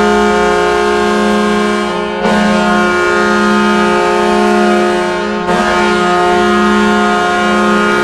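Ice hockey arena goal horn blowing a deep, loud, steady note, signalling a goal. It briefly dips and comes back in full about two seconds in and again about five and a half seconds in.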